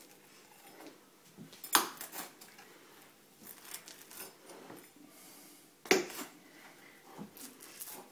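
Pizza being cut into slices: faint crunching and scraping, with two sharp knocks about two seconds and six seconds in.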